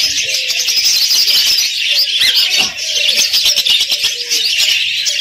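Dense, continuous chirping of many caged small birds, lovebirds among them: many short calls overlapping without a break.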